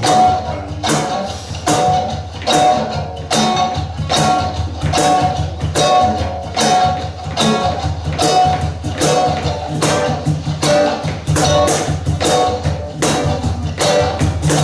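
Live band playing an instrumental passage without singing, driven by a steady, fast drum beat.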